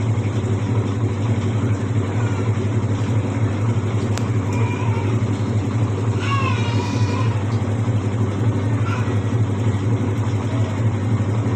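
Whirlpool White Magic Royal Plus 7.0 kg washing machine running in its spin cycle: a loud, steady hum with no letting up. Faint voices are heard behind it.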